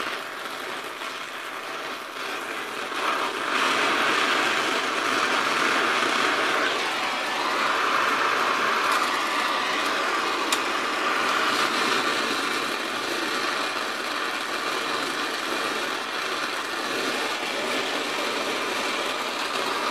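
Oxyacetylene torch flame hissing steadily while it heats a steel rod to cherry red for bending. The hiss grows louder about three and a half seconds in, and a single click sounds about ten seconds in.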